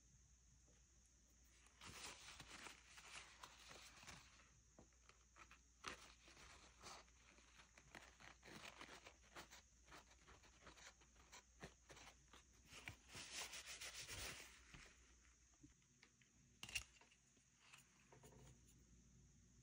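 Faint rubbing and crinkling of a paper towel pressed and wiped across a painted board, coming in bursts, with one sharp click near the end.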